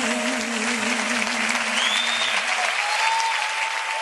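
Audience applauding, over the song's last held, wavering note, which stops about two and a half seconds in.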